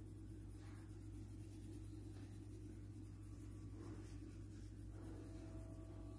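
Faint scratching of a crayon rubbed over paper while colouring in, a few soft strokes over a steady low hum.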